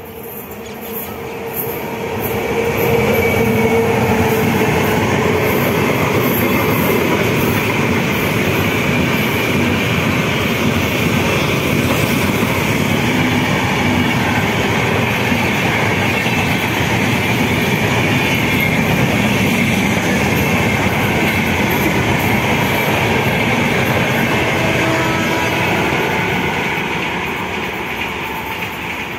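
Indian Railways passenger train of LHB coaches passing through a station at speed: the rumble and clatter of wheels on the rails builds over the first few seconds as the locomotive arrives, runs on steadily as the coaches go by, and fades near the end as the last coach passes.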